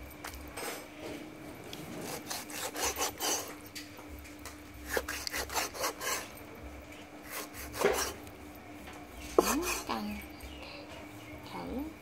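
Rubbing strokes over a wooden chopping board, followed by a cleaver cutting raw beef on the board in repeated strokes, with a sharp knock about nine seconds in.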